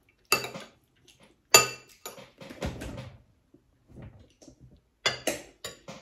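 Metal spoon clinking and scraping against ceramic plates and bowls during a meal, in separate sharp clinks: the loudest about one and a half seconds in, with others near the start and a quick cluster about five seconds in.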